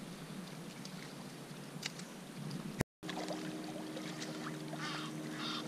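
Small waves lapping and trickling against a rocky lake shore. The sound cuts out briefly about three seconds in; after that a steady low hum runs underneath, and a few short honking calls come near the end.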